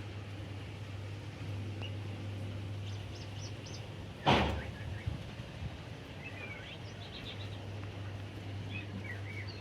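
Steady low hum with a single sharp knock about four seconds in, then small birds chirping in the background during the second half.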